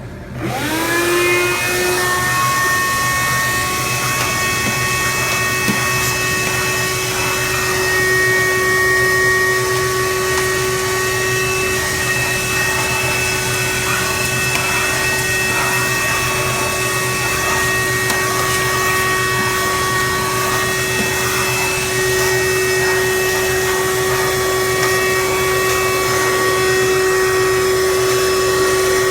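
Wet/dry shop vac switched on, its motor spinning up with a rising whine over the first second or two, then running steadily while vacuuming the dirty condenser coil and fins of a commercial refrigerator.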